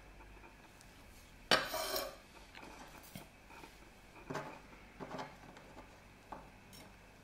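A metal chef's knife knocks and clatters on a wooden cutting board about a second and a half in, the loudest sound, ringing briefly. A few softer taps follow as garlic cloves are moved about on the board.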